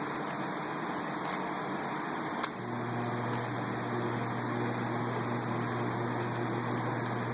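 Steady mechanical fan noise with a few faint clicks of a Rubik's Cube's layers turning. About two and a half seconds in, a click is followed by a low, steady electrical hum that comes on and keeps running, as an appliance switching on.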